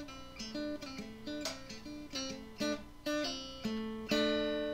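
Intro music: a guitar picking a run of single notes, then a chord struck near the end that rings out and slowly fades.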